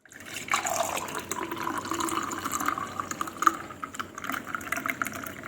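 Freshly blended fruit juice being poured from a bullet blender jar into a glass, a steady gurgling pour that tapers off near the end.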